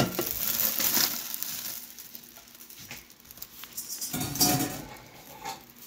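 Dungeness crab pieces tipped from a stainless steel bowl into a plastic oven bag: the shells slide in and the plastic rustles. It starts suddenly, is loudest in the first second and fades, with a second, shorter rustle about four seconds in.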